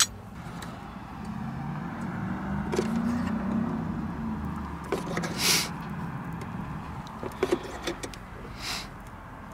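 Vise grips pressing a bushing out of a windshield wiper linkage arm: scattered metal clicks, creaks and knocks, the sharpest about five seconds in. A low rumble swells and fades in the middle.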